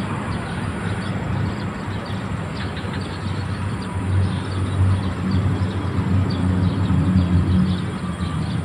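Steady low rumble of traffic on the elevated toll road overhead. It swells as heavier vehicles pass, about four seconds in and again around seven seconds.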